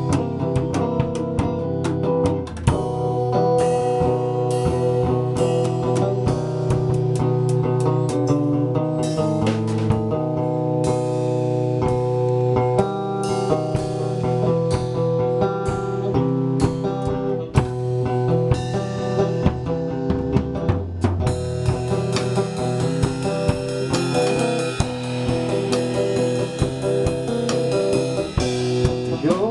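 A drum kit played with sticks, with dense drum and cymbal strikes, over music that carries sustained guitar-like notes.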